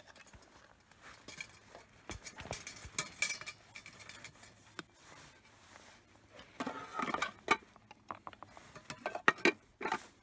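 Camp cookware (plastic mugs and bowls, a metal pot lid) knocking and clinking together as it is handled and packed into a bag. The clatter comes in scattered bursts, busiest about seven seconds in and again near the end.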